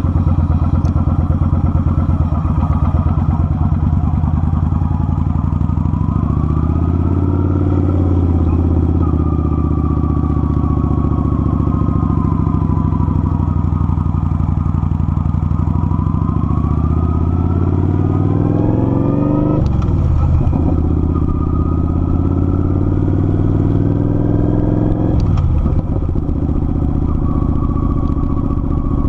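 Kawasaki Vulcan 900's V-twin engine running under way, its pitch climbing through the middle as the bike speeds up, then dropping twice in the latter part.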